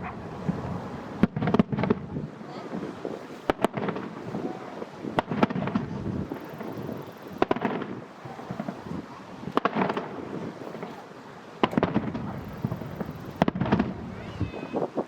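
Aerial fireworks shells bursting in a steady series, a sharp bang every one to two seconds, each trailed by a rolling rumble and echo.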